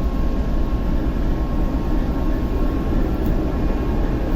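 TEP70 passenger locomotive's V16 diesel engine running steadily and quietly, freshly started after repair and not yet warmed up.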